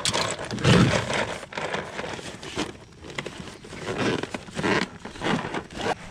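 Close-up rustling and crinkling noise in irregular bursts, about seven in a row, with crackles in them.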